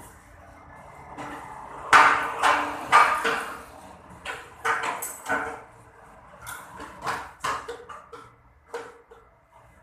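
Irregular knocks and rustles from paper and book blocks being handled at a hot-glue book-binding machine, loudest and densest about two to three and a half seconds in, then sparser.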